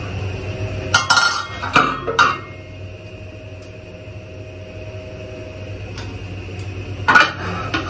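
Aluminium momo steamer tiers and lid clanking as they are lifted and set down, in two short bursts of clatter about a second in and near the end, over a steady low hum.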